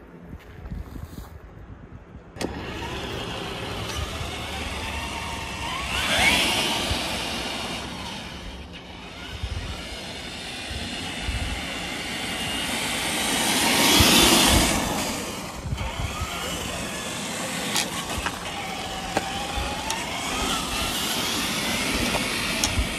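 Traxxas TRX-4 Defender RC crawler driving on asphalt: the whine of its electric motor and gears rises and falls in pitch with the throttle over the rumble of its tyres. It is loudest as it comes close, about six seconds in and again around fourteen seconds.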